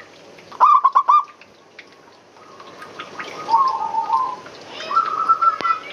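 Zebra dove (perkutut) cooing: a quick run of short, rolling notes about half a second in, then softer runs of notes later, with a single click near the end.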